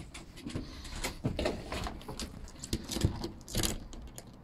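Light, irregular pattering and scratching of an animal's clawed feet moving on corrugated plastic roof sheeting.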